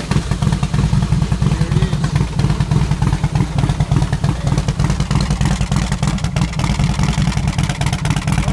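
Harley-Davidson Softail's V-twin engine running steadily just after starting. Its ignition switch contacts had been cleaned of corrosion, so the bike now starts and runs.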